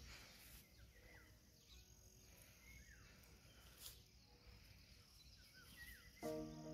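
Near silence outdoors: faint open-air ambience with a few short, faint bird chirps. Background music comes in near the end.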